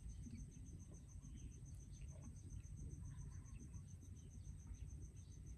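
Near silence with a faint cricket trill: a high, even pulsing of about eight pulses a second.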